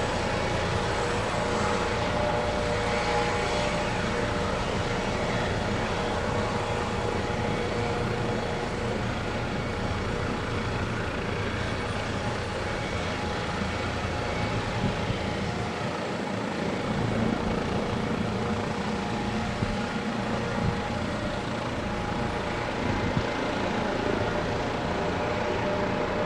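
Airbus Helicopters EC155B1's twin turboshaft engines and rotor running steadily: a continuous rushing noise with a faint steady whine.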